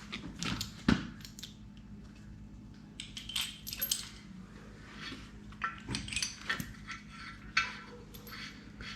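Hand tools and loose steel engine parts clinking and clattering as a 4.3-litre V6's main bearing caps and bolts come off: one sharp metal clank about a second in, then scattered lighter clinks.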